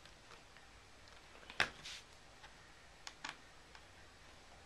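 A few sharp clicks and taps as a small screwdriver and screws work on the white plastic case of a MacBook: one loud click about a second and a half in, then a quick pair of clicks about three seconds in.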